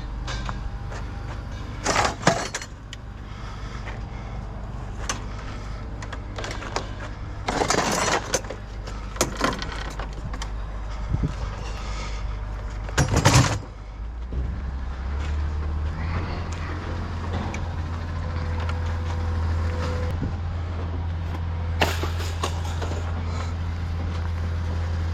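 A vehicle engine running with a steady low rumble that grows stronger about fourteen seconds in, with several loud clunks and knocks over it.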